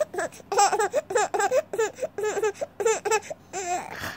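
Baby laughing in a quick string of short, high-pitched laughs.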